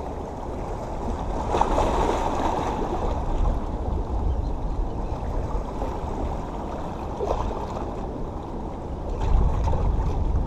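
Seawater washing and sloshing among the rocks of a jetty, with a low rumble of wind on the microphone. It swells louder about nine seconds in.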